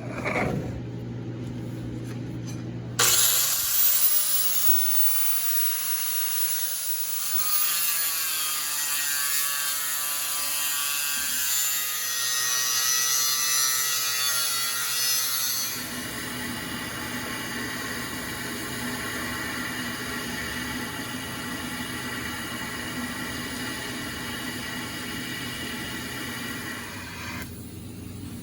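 Angle grinder grinding steel: it starts suddenly about three seconds in, its whine rising and falling as it is pressed into the metal, then runs steadier for the second half and fades near the end.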